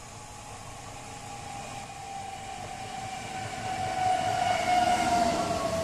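Newag Impuls 31WEbb electric multiple unit arriving at the platform and slowing: a whine that falls slowly in pitch as the train decelerates, over rolling noise, growing louder as it comes alongside and loudest near the end.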